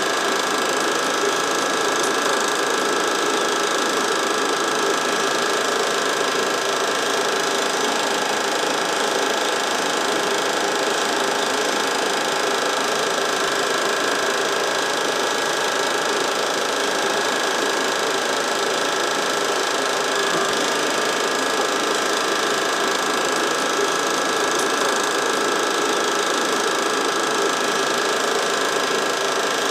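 Home-movie film projector running: a steady, unchanging mechanical whirr of the motor and film transport, with no other sound.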